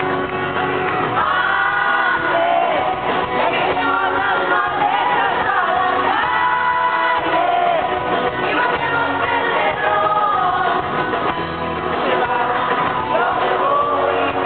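A live pop band plays a song, with a lead vocal sung over guitar, drums and band backing. It is heard from among the audience in a large hall.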